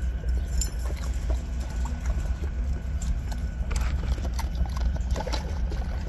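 Labrador retrievers jostling against a chain-link fence: scattered light knocks and clicks over a steady low rumble on the microphone.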